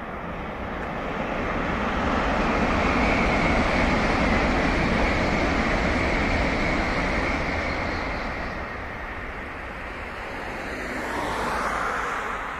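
Tokaido Shinkansen bullet train passing at speed on an elevated track: a rushing noise that builds over a couple of seconds, holds, then slowly fades. Near the end a car passes on the road with a shorter, smaller swell of tyre and engine noise.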